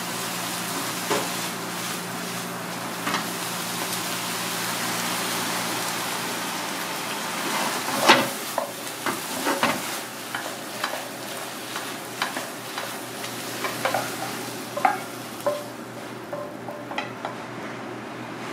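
Food sizzling in a frying pan while a wooden spatula stirs it, with repeated scrapes and knocks against the pan, the sharpest about halfway through. The sizzle dies away near the end while the spatula keeps knocking.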